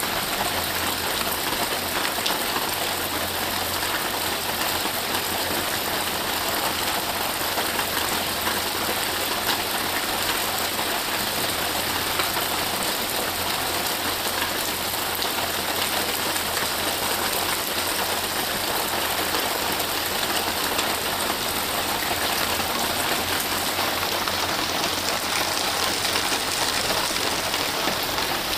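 Steady rain falling on trees and vegetation, an even hiss that holds at the same level throughout.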